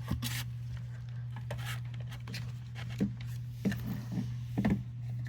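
Handling noises from a weather radio and its power cord: scattered light plastic clicks and rubbing, with a steady low hum underneath.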